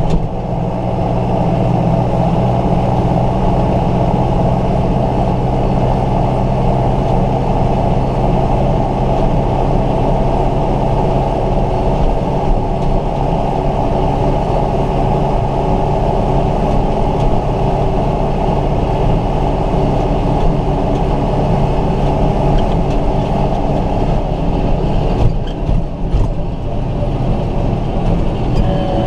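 Tractor's diesel engine running steadily as it drives at road speed, heard from inside the cab.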